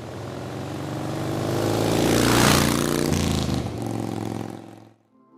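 A motor vehicle engine passing by: it grows louder to a peak about two and a half seconds in, its pitch drops as it passes, and it fades away near the end.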